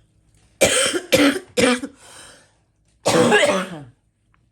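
A woman coughing with an irritated throat: three quick coughs about half a second in, then one longer cough about three seconds in.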